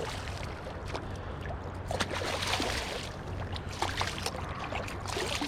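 River water sloshing and splashing around a hooked walleye being landed, with a run of heavier splashing about two seconds in and another near the end.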